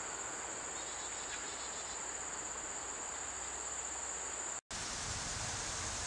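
A steady, high-pitched chorus of singing insects over the soft hiss of a shallow creek. About four and a half seconds in, the sound cuts out for an instant; after that the insect tone is gone and only a fuller, steady rushing hiss of water remains.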